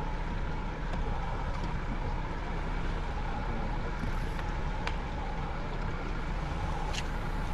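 Steady low rumble and hum of an inflatable fishing boat's outboard motor running at idle, with two short clicks in the second half.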